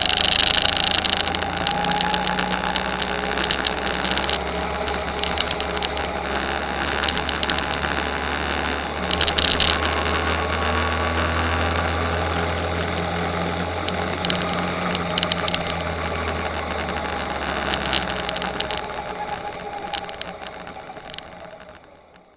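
Rental go-kart engine running steadily, heard from an onboard camera on the kart, with scattered short crackles of wind and rattle on the microphone. The sound fades out near the end.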